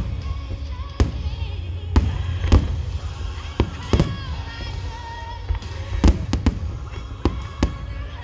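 Aerial fireworks shells bursting in a string of irregular bangs, about eight of them, over a low rumble. Music from large outdoor loudspeakers plays underneath.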